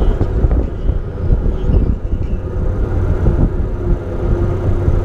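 Boat motor running steadily under way, a constant low drone, with wind buffeting the microphone.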